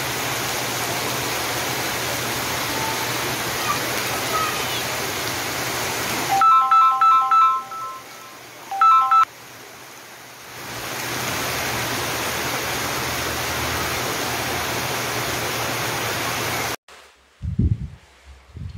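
Heavy rain pouring down on a flooded street, a steady hiss of rain and running water. In the middle it turns quieter for a few seconds while a short electronic tone melody, like a phone ringtone, sounds twice. Near the end the rain cuts off and low handling thumps follow.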